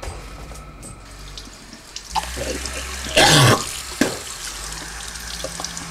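Chrome sink faucet running into the basin, with water splashing as a face is held under the stream. A short, loud burst of splashing about three seconds in.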